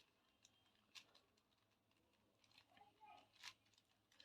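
Near silence with a few faint plastic clicks as the layers of a 4x4 Rubik's cube are turned.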